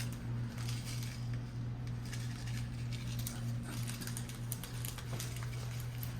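Clear slime being handled and pressed on a tabletop, giving soft, irregular small clicks and pats over a steady low electrical hum.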